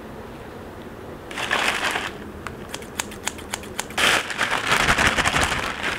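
A plastic courier mailer bag rustling and crinkling as it is handled, in two bursts: a short one about a second in and a longer one from about four seconds in, with scattered light clicks and taps between them.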